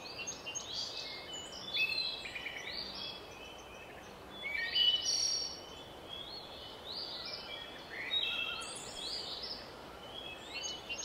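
Small songbirds singing in short, high chirping phrases, several overlapping, over a light steady hiss. The loudest phrase comes about five seconds in.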